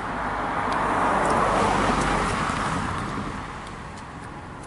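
A car driving past, its road noise swelling to a peak about a second and a half in, then fading away.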